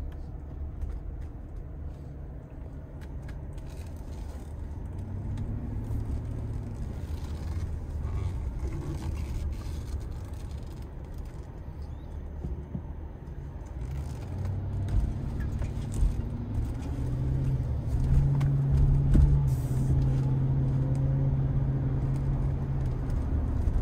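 Car cabin noise while driving on a wet road: a steady low rumble of engine and tyres, with a low hum that grows louder in the second half.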